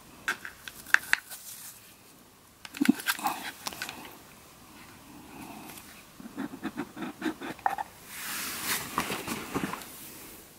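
A ribbon being untied and the lid pulled off a small cardboard tube, giving scattered rustles, clicks and a longer rustle near the end. A dog's snoring breaths can be heard in the room at the same time.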